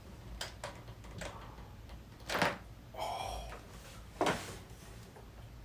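A few dull knocks and thuds, the two loudest about two and a half and four seconds in, with a brief squeak between them.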